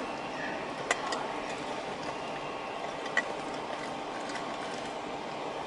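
Steady city street and traffic noise, with two sharp clicks about a second in and about three seconds in.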